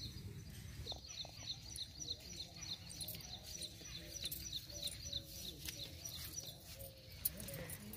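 A small bird calling a rapid series of short high chirps, about four a second, that thin out after about three seconds. A few faint clicks or rustles sound later on.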